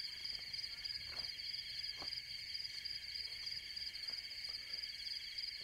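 Steady chorus of crickets chirring at several high pitches, with a couple of faint soft knocks.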